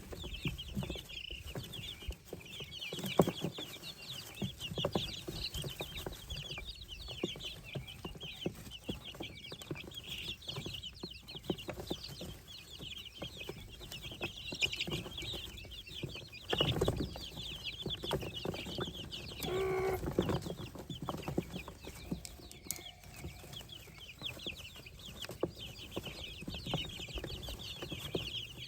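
A brood of baby poultry (chicks, guinea keets and ducklings) peeping continuously, many short high cheeps overlapping, with one lower call about twenty seconds in.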